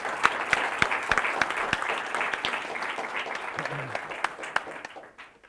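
Audience applauding, a dense spread of hand claps that dies away about five seconds in.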